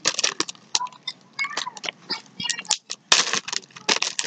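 Clear plastic bag crinkling and rustling in irregular bursts as it is shaken and squeezed to mix green slime inside it.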